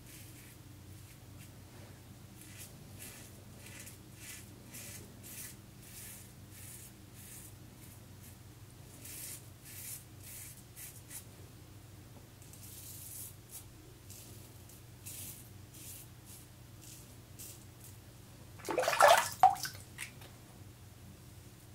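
Leningrad-1 safety razor scraping through lathered stubble in short repeated strokes, about one or two a second, on a second pass. Near the end comes a brief, much louder splash of water.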